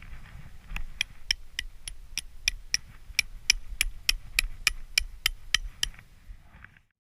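A hammer driving a metal tent stake: a fast, even run of about twenty ringing strikes, roughly four a second, that stops about six seconds in.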